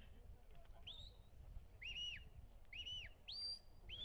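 A shepherd's whistle giving commands to a working sheepdog: a run of about five short, clean whistle notes, some rising and falling in an arch, two lower ones in the middle followed by a higher one. Under them is a low rumble.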